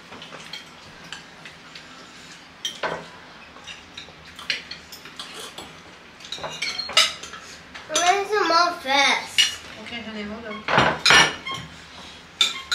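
Forks and a serving spoon clinking and scraping on plates and a serving bowl as rice is served and eaten, in many short clicks. A voice sounds briefly partway through.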